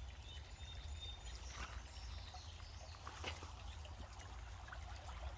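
Creek rapids: water running and trickling steadily, with a low rumble underneath.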